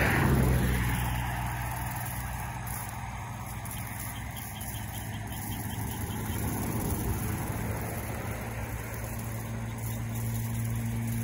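A motor vehicle's steady low engine hum with road noise that is loudest at the start and fades over the first couple of seconds, as if the vehicle were moving away.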